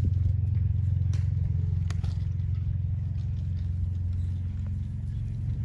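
A steady low rumble, easing slightly near the end, with a few light clicks about one and two seconds in.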